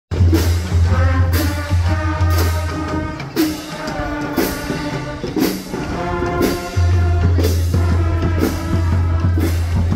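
Music with a steady drum beat, one heavy beat about every second, over pitched instrument notes. A deep sustained bass drops out about three seconds in and comes back near seven seconds.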